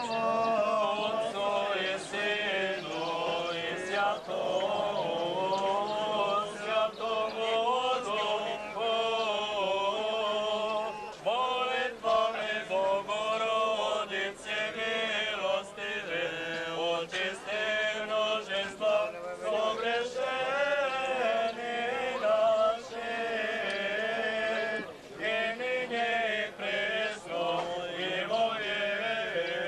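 Orthodox priest chanting a liturgical prayer in a steady, unbroken melodic line, with a few short clicks scattered through it.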